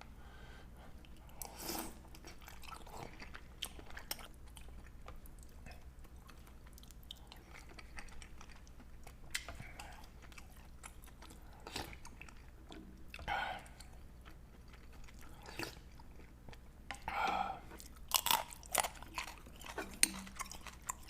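Close-up mouth sounds of someone eating a shrimp dumpling and spicy instant ramen: soft chewing and biting with many small wet clicks, plus a few louder bursts, most of them clustered near the end.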